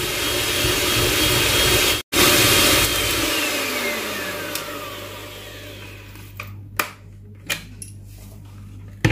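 Electric mixer whipping eggs and sugar for a génoise sponge, its motor running steadily with a brief break about two seconds in. It then winds down with a falling whine and fades out about halfway through. A few light knocks follow.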